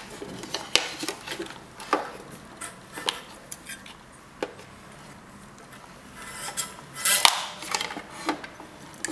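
Scattered light metallic clicks and clatters of a capillary thermal cut and its wire terminals being handled and pulled off the flange heating element of an electric water heater, with a brief cluster of clicks about seven seconds in.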